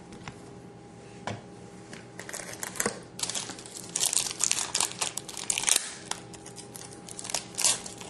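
Trading card pack wrapper being torn open and crinkled by hand, a dense run of crackles and short rips, busiest in the middle and trailing off near the end.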